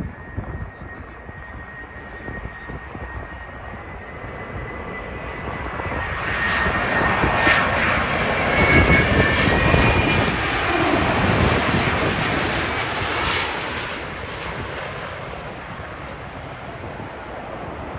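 Jet airliner on final approach passing close by: the engine noise swells over several seconds, peaks about halfway through with a falling tone as it goes past, then fades away.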